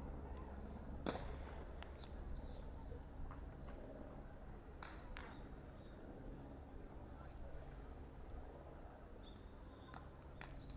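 Outdoor baseball practice ambience: a few sharp knocks of baseballs being hit or caught, the loudest about a second in and another near five seconds, over a low steady rumble with faint high chirps.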